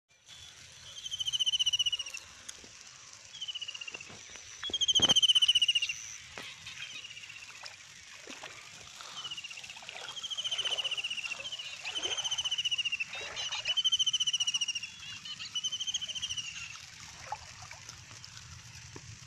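An animal's buzzy trill, repeated about eight times, each call about a second long and falling slightly in pitch. Soft splashes of feet wading through shallow water run under the calls.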